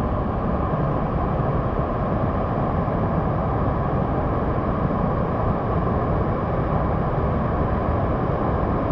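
Waterfall: a steady, even rush of falling water, deep-toned and unbroken.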